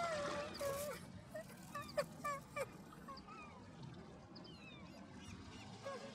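Strange animal-like calls: a held wailing note that glides down and dies away in the first second, then scattered faint squeaky chirps and short whistling glides, rising and falling in pitch.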